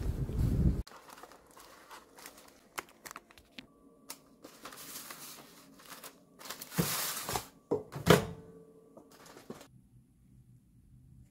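A louder noise cuts off abruptly just under a second in, then quiet rustling and crinkling with scattered clicks, like paper or packaging being handled. A louder rustle comes about seven seconds in and one sharp click about a second later.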